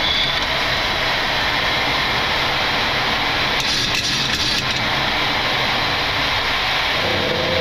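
Steady rush of jet engines and airflow on a Boeing 737's flight deck during the initial climb just after liftoff.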